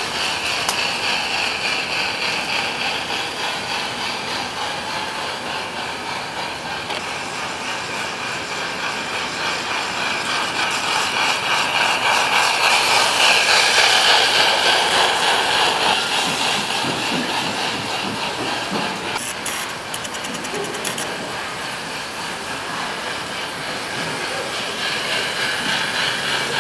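Garden-scale model train running on its track: a steady hiss of wheels on rails that swells loudest about halfway through as the train passes close.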